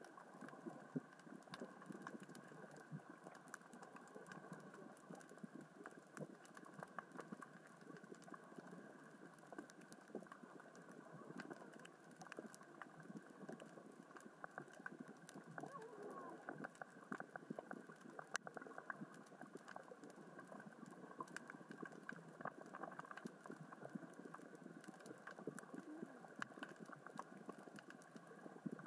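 Underwater crackle of small rocks rolling and knocking across the sea floor, moved by the current and tide: a steady patter of many tiny clicks and ticks.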